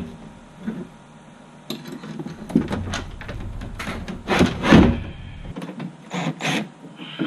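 Rod tubes being worked back into a Hobie Pro Angler kayak: irregular scraping and rubbing with knocks, the loudest cluster about four and a half seconds in.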